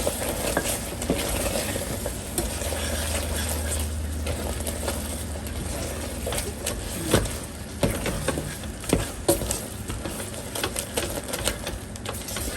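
Chopped apples and pineapple sizzling in caramelized sugar in a pan, stirred with a spoon that clicks against the pan now and then, more often in the second half.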